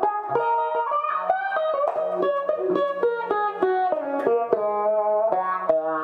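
2019 PRS Silver Sky electric guitar played through a Line 6 HX Effects multi-effects preset, picking a busy melodic line of single notes, several a second, with a bright twangy tone.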